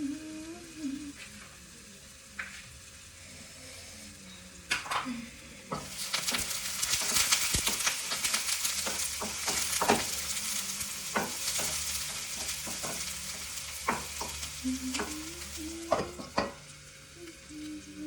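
Food frying in hot oil in a pan. A loud sizzle starts about six seconds in and eases near the end, with a spatula clicking and scraping against the pan as it is stirred.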